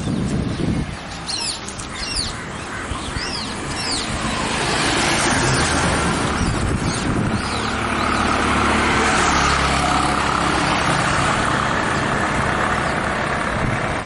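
A few bird chirps, then a motor vehicle's steady engine hum and road noise that grow louder over a few seconds and hold, before cutting off suddenly.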